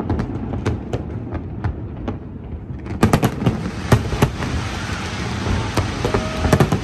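Fireworks going off: an irregular string of sharp bangs and crackles over a continuous rumble, coming faster and louder about three seconds in.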